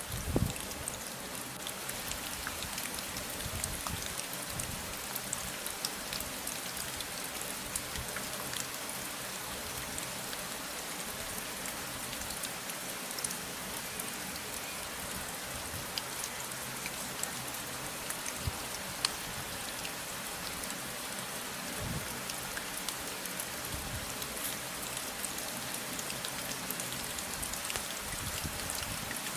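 Steady rain falling, with many fine drop ticks and a few brief low thumps, the loudest about half a second in.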